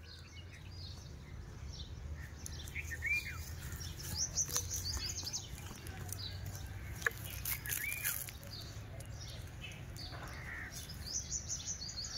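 Birds chirping and calling from the surrounding trees and bushes, one short call repeating every few seconds, over a steady low rumble.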